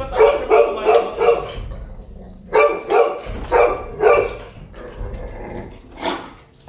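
Golden retriever barking angrily at the handler, in two quick runs of about four loud barks, then one more bark near the end; the barking of an aggressive dog defending its pen.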